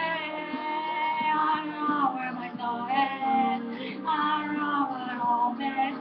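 Pop song: a female voice singing long held and gliding notes over a steady instrumental backing.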